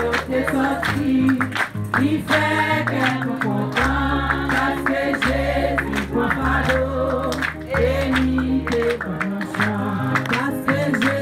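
Background music: a song with singing voices over held bass notes and a steady beat.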